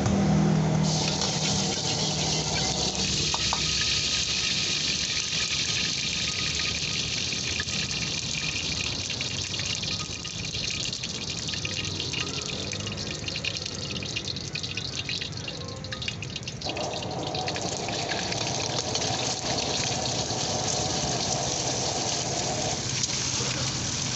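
Steady hiss of oil heating in a carbon-steel wok over a high-flame gas burner. Near the end, eggs fry in the oil with a sizzle as a metal ladle stirs them.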